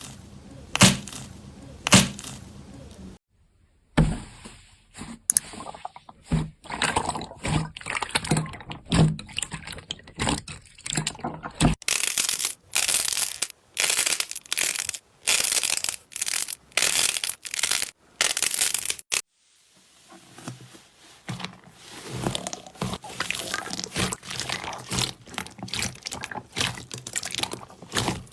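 Slime being squeezed, poked and pressed by hand in a run of short clips: sticky clicks and crackling, with crunchy, tearing bursts about twice a second in the middle stretch.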